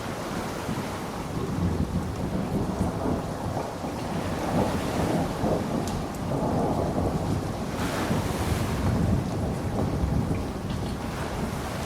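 Thunderstorm: steady rain under a continuous low rumble of thunder, with a sharper crackle of thunder about eight seconds in.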